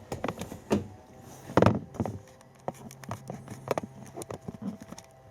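Sharp plastic clicks and knocks as a replacement blower motor's electrical connector is plugged back in by hand, the loudest about a second and a half in, over a faint steady hum.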